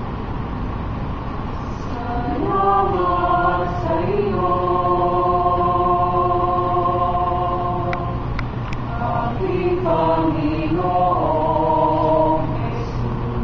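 Mixed choir of young male and female voices singing in harmony into one microphone, coming in about two seconds in with a long held chord, then a short break and a second phrase. A steady low hum runs underneath.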